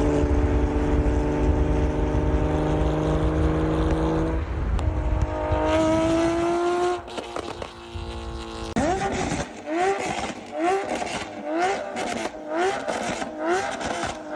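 Tuned Porsche 911 GT3 flat-six engine: it holds one steady pitch under load for about four seconds, then rises in a pull, and after a short break gives a quick run of short revs, about one and a half a second.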